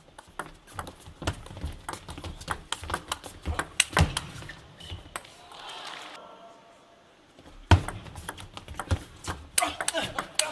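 Table tennis rallies: the ball clicking sharply off rackets and table in quick, irregular succession. Near the middle the hits give way to a brief spell of voices, then the clicks start again.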